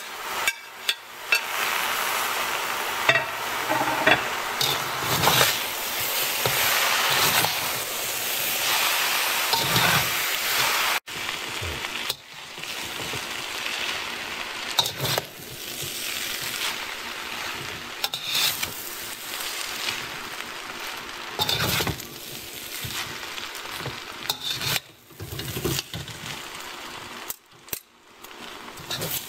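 Stir-fried noodles, shrimp, bok choy and egg sizzling in a hot wok while they are tossed, with a metal spatula scraping and clinking against the wok again and again.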